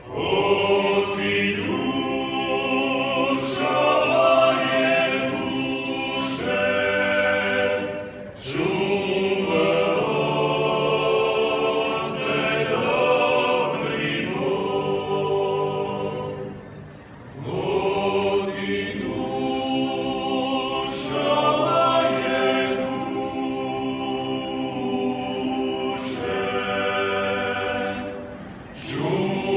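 Male klapa ensemble singing a cappella in close harmony, in traditional Dalmatian style: long sustained chords sung in phrases, with brief dips for breath about 8, 17 and 29 seconds in. The stone walls around the singers add reverberation.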